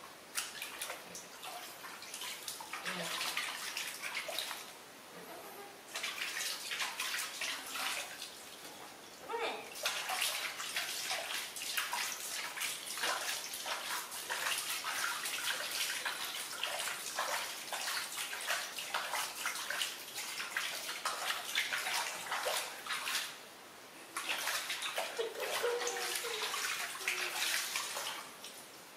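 Water splashing and sloshing in a plastic basin as a baby monkey is washed by hand, in irregular bursts with a couple of brief lulls.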